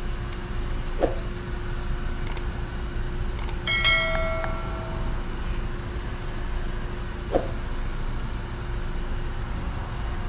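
Steady low background rumble with two light knocks, and about four seconds in a single sharp metallic clink that rings for about a second.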